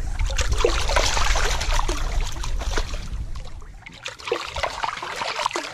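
Splashing and lapping of shallow river water as a released steelhead swims off, busiest over the first few seconds and then settling to a softer trickle.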